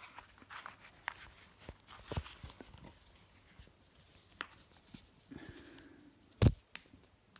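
Handling noise as a hockey goalie helmet's back plate is put on the head: scattered light knocks and rustles, with one loud thump about six and a half seconds in.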